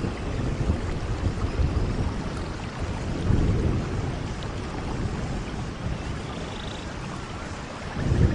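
Steady rain falling in a forest, with low rolling rumbles of thunder that swell about three seconds in and again near the end.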